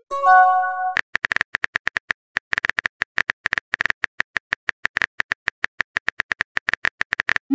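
Simulated phone-keyboard sound effects: a short multi-tone chime about half a second in, then rapid key-tap clicks at about ten a second as a message is typed, and a rising swoop at the very end.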